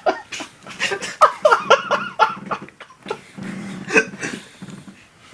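People laughing in a run of short bursts that trail off near the end.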